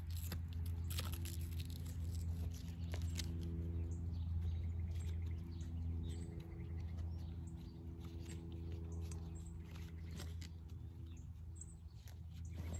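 Faint clicks and rubbing as a leather strap is rolled up and fastened through a metal buckle on a canvas motorcycle saddlebag, over a steady low hum.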